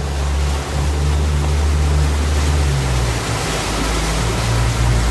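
Rayglass motor launch's engine running with a steady low rumble under a loud rushing of wind and water, heard from inside the boat's cabin while under way.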